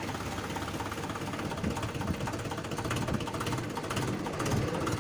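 Mahindra 575 DI tractor's four-cylinder diesel engine running steadily, with no clutch noise: the clutch has just been repaired and is now working fine.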